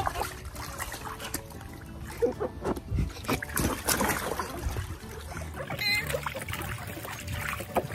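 Water splashing and trickling in a plastic paddling pool as a child moves about in it, in irregular small splashes.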